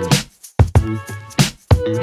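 Background music with a steady beat: drum hits over held bass and chord notes, dropping out briefly about half a second in.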